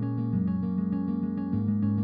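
Background instrumental music with steady, evenly repeating notes.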